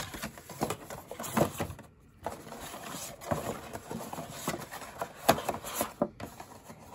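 Hands handling a cardboard headphone box and its card inner tray: irregular taps, knocks and rubbing of stiff card, with a short pause about two seconds in.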